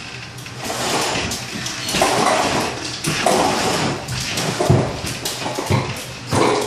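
Drywall banjo taper in use: irregular rasping scrapes and swishes as mud-coated paper tape is drawn out of it and pressed into the wall-ceiling angle, with small clicks in between.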